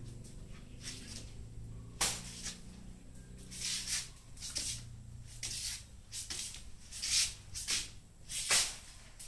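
A broom sweeping a concrete floor: about a dozen short, uneven swishes, over a low steady hum that fades out about halfway through.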